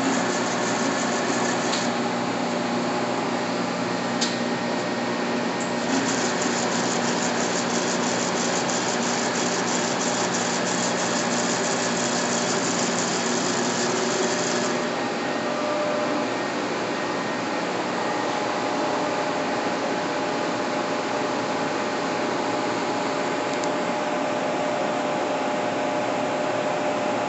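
G&L (Giddings & Lewis) 52-inch vertical turret lathe running with a steady mechanical hum and whine. From about six seconds in to about fifteen a fast, fine high ticking rides over it, then stops and the machine runs on steadily.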